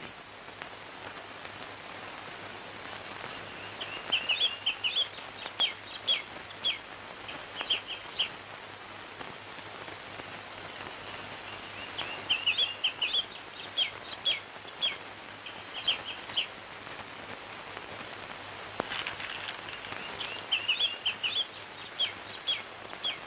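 A bird chirping in three bouts of short, quick chirps several seconds apart, over a steady low hum and hiss from an old film soundtrack.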